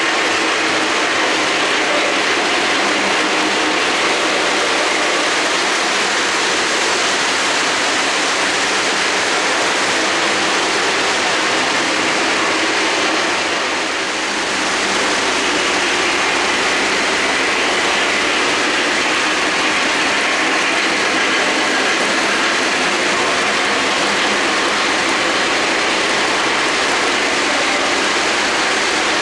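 O-gauge three-rail model trains running on a layout: a steady rush of metal wheels rolling on the track. The sound dips briefly about halfway through, then carries on.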